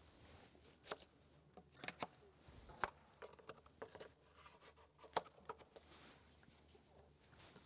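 Near-quiet room with scattered faint, irregular clicks and taps from a horse walking on arena sand and its tack.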